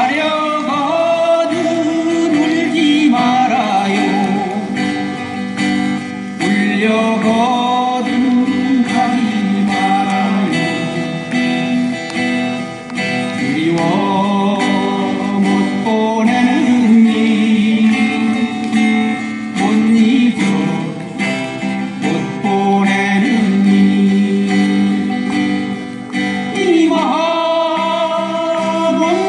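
A live acoustic guitar ensemble of four players strumming chords together, with a sung melody over the guitars.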